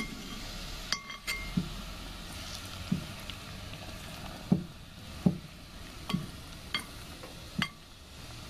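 Metal spoon stirring oxtail stew in a cast-iron potjie, clinking and scraping against the pot every second or so, over a steady low sizzle from the pot on the fire.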